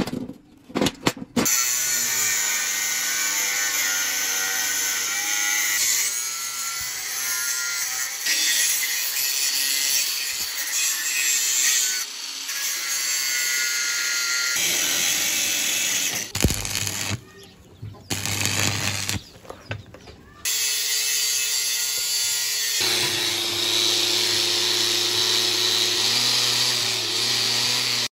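Angle grinder grinding and wire-brushing a welded bundle of steel rebar, running steadily with two short breaks about two-thirds of the way through.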